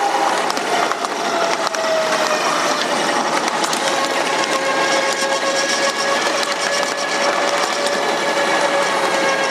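A 7.5-inch gauge ride-on miniature train running along its track: steady rolling noise of wheels on rail with scattered clicks and a high steady whine held through most of it.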